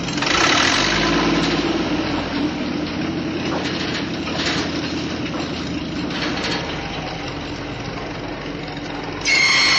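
Bulldozer engine running with a low rumble and a few brief clanks. Near the end the sound switches abruptly to a louder, steady high-pitched squealing.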